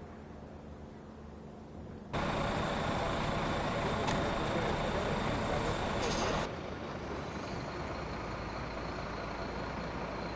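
Steady engine noise of a large vehicle. It starts abruptly about two seconds in, loudest for the next four seconds or so, then drops suddenly to a lower steady level.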